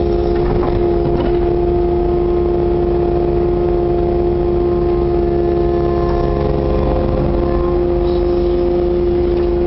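Kubota KX080-4 excavator's diesel engine and hydraulics running steadily while the machine digs and slews, heard from inside the operator's cab. It is a constant, even-pitched hum.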